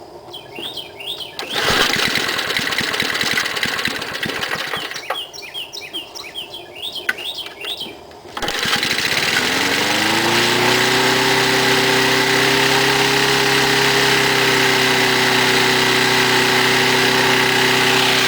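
3.5 hp Briggs & Stratton engine on an old MTD push mower being pull-started after about a year of sitting: it fires and sputters briefly and dies, then on the next pull a few seconds later catches, its pitch rises, and it settles into a steady run. Birds chirp in the pause between the two pulls.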